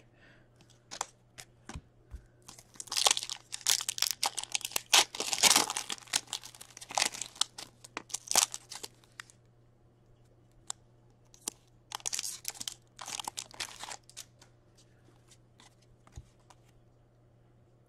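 A foil hockey-card pack wrapper is torn open and crinkled by hand, in rustling bursts. Sharp clicks and taps come between the bursts as the cards inside are slid and flicked through.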